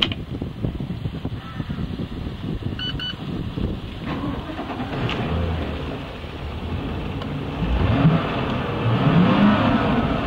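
Volvo Penta 320 hp V8 inboard engine of a speedboat running, revving up twice near the end as the throttle is opened. Two short electronic beeps sound about three seconds in.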